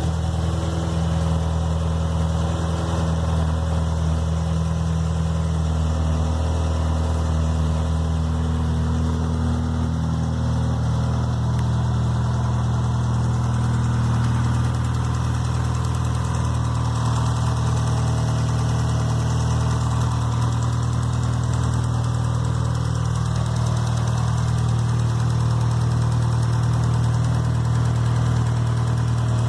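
Fiat Marea 1.8 16v four-cylinder engine idling steadily, with an abnormal engine noise that the owner is showing.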